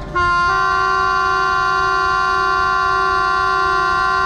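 Diesel-electric locomotive air horn (Pakistan Railways HBU-20) sounding one long, steady multi-note blast that starts just after the beginning: the departure horn signalling that the train is about to leave.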